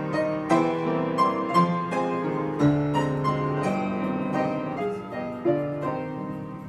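Grand piano playing an instrumental interlude between sung verses of a Russian romance: a melody over chords, notes struck one after another.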